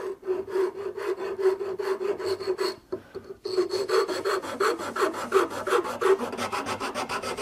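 Pattern maker's rasp scraping back and forth across the face-grain top of a wooden hand-plane body, in quick repeated strokes, with a brief pause about three seconds in.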